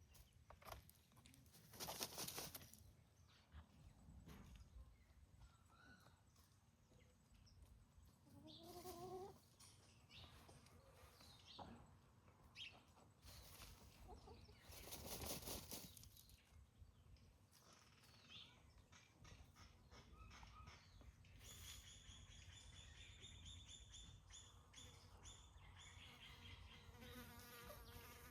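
Faint farmyard sounds of chickens: a short rising call about a third of the way in, two brief rustling bursts, and a run of rapid high-pitched chirps in the last few seconds.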